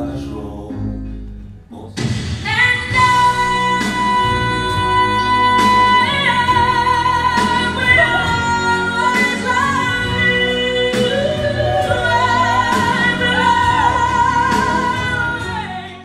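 A song: a woman sings long held notes with vibrato over a band with drum hits. A quieter instrumental passage comes first, the singing enters loud about two seconds in, and it fades right at the end.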